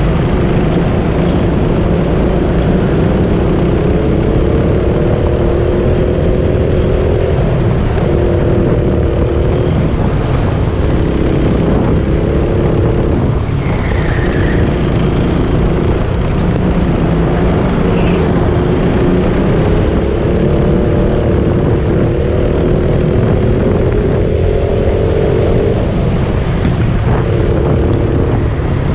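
Go-kart engine heard from on board the kart, its note climbing over several seconds and dropping back again and again as it speeds up and slows, over a constant heavy rumble.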